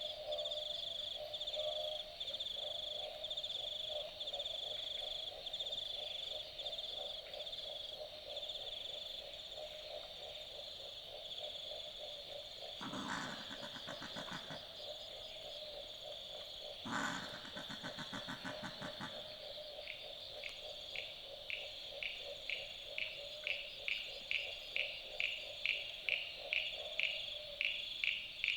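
An Australian boobook owl gives a rapid series of frog-like croaks over a steady high insect chorus. About 13 s and 17 s in, a common brushtail possum gives two harsh growling calls. From about 20 s a common eastern froglet calls in a regular series of short clicks that quicken and grow louder.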